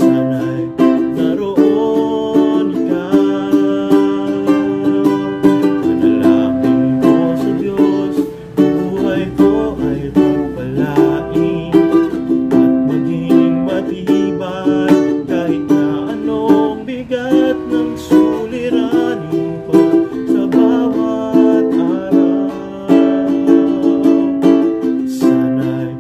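Valukes all-koa tenor ukulele strummed in a steady rhythm, moving through a chord progression.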